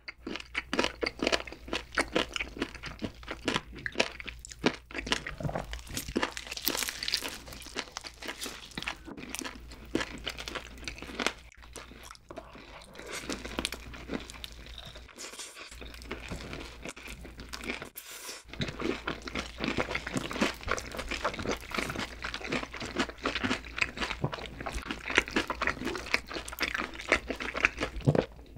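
Close-miked crunching and chewing of crispy fried chicken by two eaters, a steady run of crackling bites and chews.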